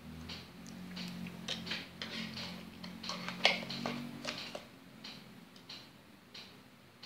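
Red plastic fork tapping and scraping inside a small plastic cup of chocolate, a series of light, irregular clicks, the loudest about three and a half seconds in. A low steady hum runs beneath and fades out about five seconds in.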